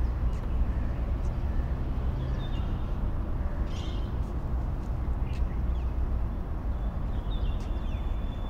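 A steady low outdoor rumble, with faint, brief bird chirps scattered through it and a thin high held note starting near the end.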